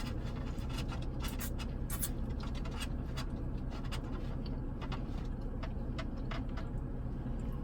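People eating fried chicken wings: scattered small crunches, chewing and handling clicks over a steady low hum.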